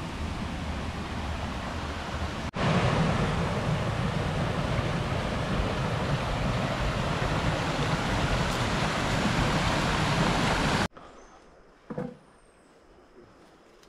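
Rushing water of a fast-flowing stream, a steady noise that jumps louder a couple of seconds in. Near the end it cuts off suddenly to a much quieter forest background with a faint steady high-pitched tone and a brief rustle.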